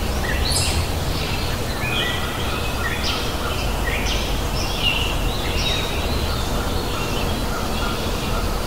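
Birds chirping, short high notes coming several times a second in overlapping calls, over a steady low rumble.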